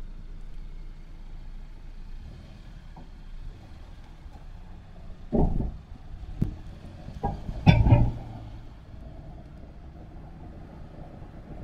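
A car's steady low rumble, with a few short thumps and clicks; the loudest thump comes about eight seconds in.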